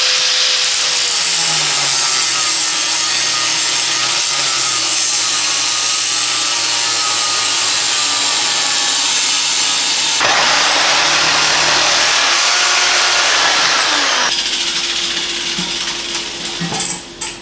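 Power tool cutting into a steel car muffler's casing: a steady, loud rasping grind with a whine that wavers in pitch as the tool loads up. The sound changes abruptly twice, about ten and fourteen seconds in, and eases off near the end.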